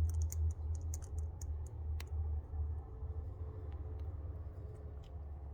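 Small, light clicks and ticks of a hex driver and the metal and plastic parts of a miniature beadlock crawler wheel as its six screws are tightened in turn, with a quick run of clicks at first and a sharper single click about two seconds in. A steady low hum runs underneath.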